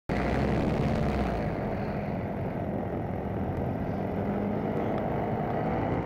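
Paramotor engine and propeller running steadily in flight.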